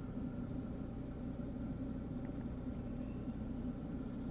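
Hcalory diesel air heater running just outside the tent, heard from inside as a steady low hum.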